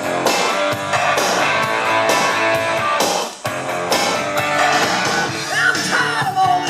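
Rock-and-roll music with guitar, played from a record on a Technics SL-QD22 turntable.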